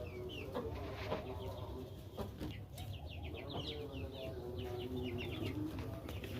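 Aseel chickens: many chicks peeping in short, high, falling cheeps that overlap all through, with lower clucking calls from adult birds underneath.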